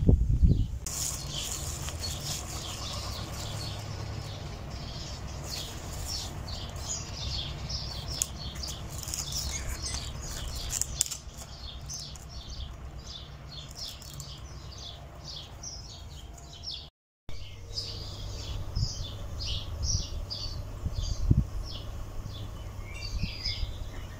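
Small birds chirping and twittering in quick, rapid notes throughout, over a steady low background rumble; the sound cuts out for a moment about two-thirds of the way through.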